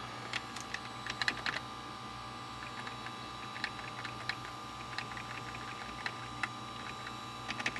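Scattered clicks of a computer keyboard being tapped while a file list is scrolled, a little cluster about a second in and single taps after, over a steady electrical hum.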